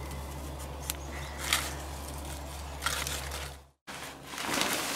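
Garlic chive flower stalks snapping with light rustling of leaves as the flower heads are picked by hand, a few sharp ticks over a steady low hum. After a short silent gap just before four seconds, a woven plastic sack crinkles and rustles as it is handled, louder than the picking.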